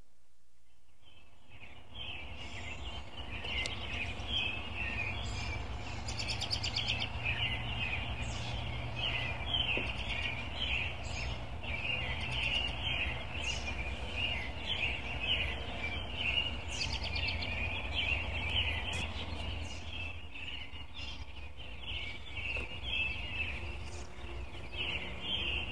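A home recording of a dawn chorus: many songbirds chirping and trilling at once in quick, overlapping calls, over a steady low rumble. The birdsong starts about a second and a half in.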